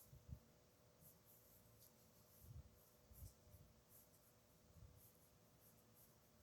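Faint scratching of a pen writing on paper in short strokes, with a few soft low bumps from the desk.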